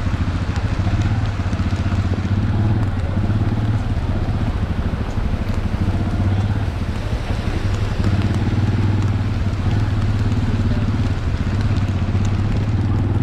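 Motor vehicle engine running steadily at a constant pitch while driving, with a noisy hiss above it.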